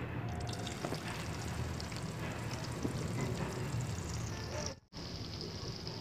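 Hot oil sizzling steadily in a metal kadai as chopped onion is added and begins to fry. The sound cuts out for a moment near the end and returns as a brighter sizzle.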